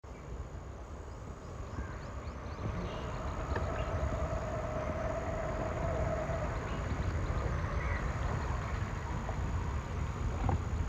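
Old Maruti car's engine running with a low rumble that grows louder over the first few seconds, then holds steady.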